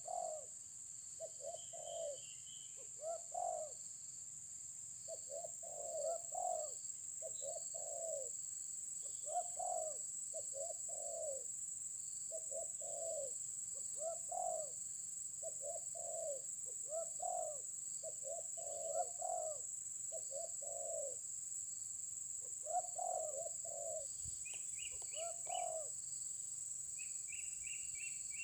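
Spotted doves cooing over and over, one short low coo phrase every second or two, over a steady high insect hiss. Near the end a small bird adds quick runs of high chirps.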